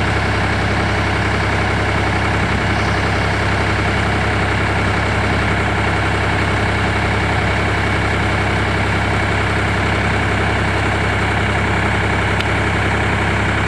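Massey Ferguson tractor engine idling steadily, with no change in speed.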